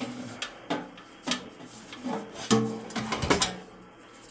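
Metal parts of the 606A signal generator knocking and scraping, several knocks followed by short ringing tones, as a stuck part is worked loose.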